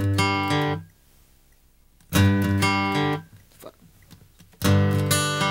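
Acoustic guitar strumming chords in short phrases of about a second, broken by pauses of about a second and a half; the strumming comes in twice and starts again near the end.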